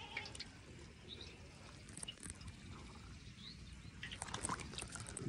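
Faint water dripping and trickling as a monofilament gill net is handled in shallow floodwater, the drips growing denser about four seconds in. A few faint bird chirps can be heard.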